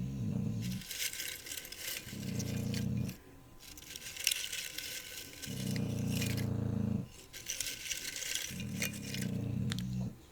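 A puppy snoring in a steady rhythm: a low, buzzing snore alternating with a breathy hiss, one breath cycle about every three seconds. Light clinks and rattles are heard over it.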